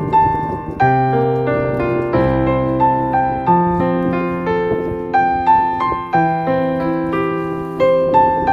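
Background music: a piano playing a slow melody over sustained low notes.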